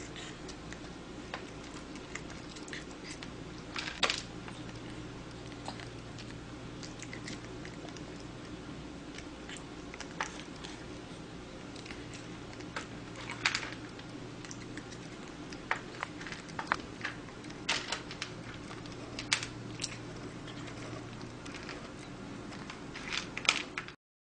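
Long-haired kitten chewing and smacking as it eats food off chopsticks: scattered short clicks and crackles, a few louder ones, over a steady low hum. The sound cuts off abruptly near the end.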